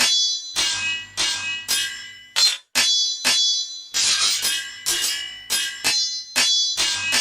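Metal swords clashing in a fight: a quick, irregular series of sharp clangs, about two to three a second, each ringing on briefly as it fades.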